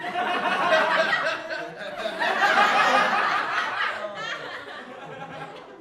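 Laughter, starting abruptly, swelling again about two seconds in and dying down near the end.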